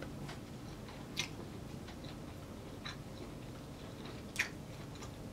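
A person chewing a mouthful of food with lips closed, close to the microphone, with a few sharp wet mouth clicks; the two loudest come about a second in and near the end.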